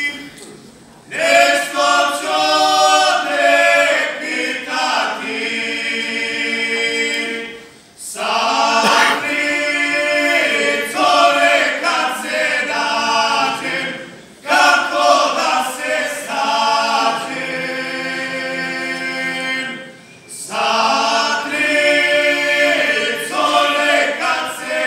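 Men's folk singing group singing a Serbian traditional song, several male voices together in long held phrases, with short breaks for breath about every six seconds.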